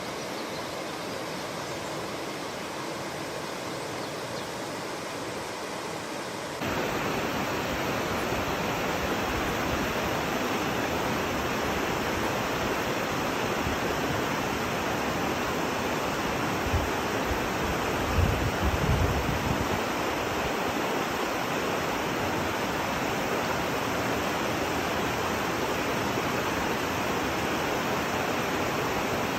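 Waterfall and river water rushing in a steady, even roar that becomes suddenly louder about a quarter of the way in. A few low bumps come briefly past the middle.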